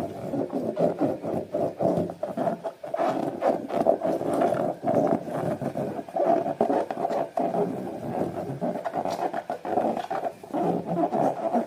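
Slime being squished and kneaded by hand, a continuous squelching with many small sticky clicks and crackles.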